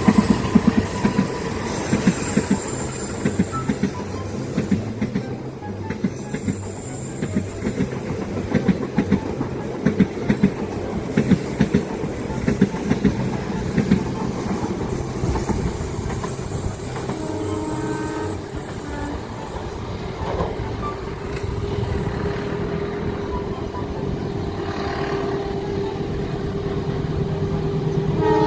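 Train passing on the rails, its wheels clicking over the rail joints through the first half. A short horn blast sounds about 17 seconds in, followed by a long steady tone.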